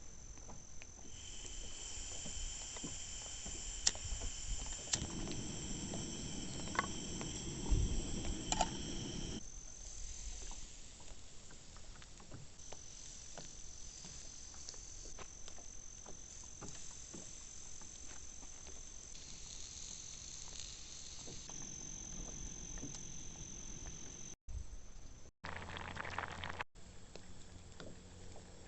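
Insects chirring in steady high-pitched tones, with the chorus changing at a few abrupt cuts near the end. A couple of light knocks come through about four and eight seconds in.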